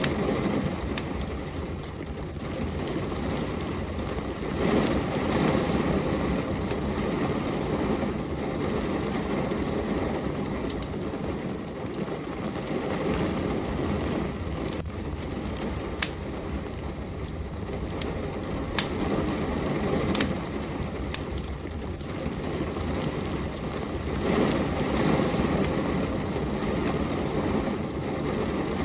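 Steady rain that swells and eases every several seconds, mixed with a wood fire crackling, with a sharp pop from the fire every few seconds.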